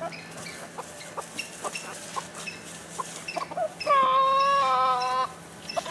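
Chickens clucking in short, scattered calls. About four seconds in, one bird gives a loud, drawn-out call of steady pitch lasting over a second, in two parts.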